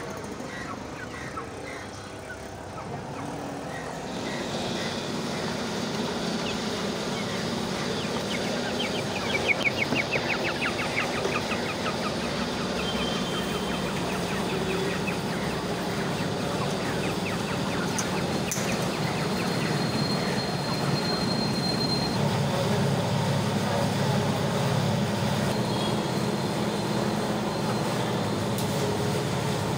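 Steady mechanical rumble and noise in a poultry shop, with caged birds calling now and then, including a quick run of short chirping calls about ten seconds in. A low machine hum grows louder in the last third.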